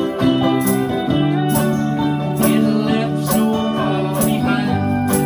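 Live acoustic guitar strummed in a steady beat over long held chords from a band.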